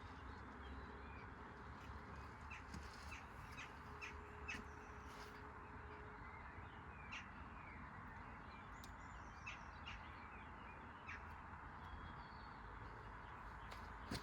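Faint bird calls: short chirps scattered over a steady low hiss and hum.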